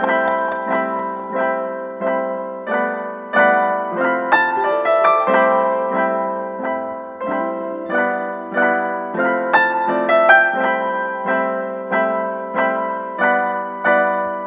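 Background piano music: a gentle melody of single struck notes at an even, unhurried pace.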